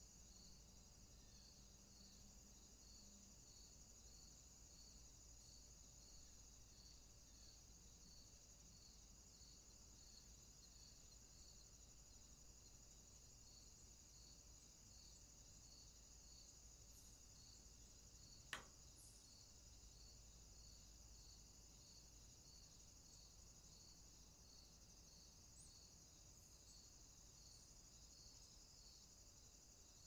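Near silence with a faint, steady, high-pitched insect chorus and a regular chirp about once a second. A single sharp click about two-thirds of the way through.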